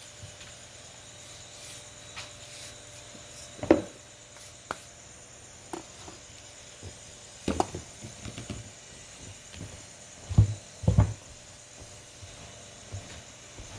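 Scattered knocks and clatter of kitchen things being handled and set down, loudest about four seconds in and twice in quick succession near the end, over a faint steady hum.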